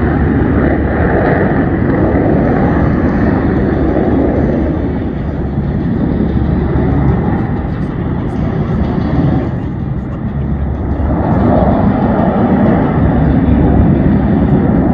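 Jet engines of a formation of aerobatic military fighter jets flying past: a loud, dense jet noise that eases off in the middle and grows louder again near the end.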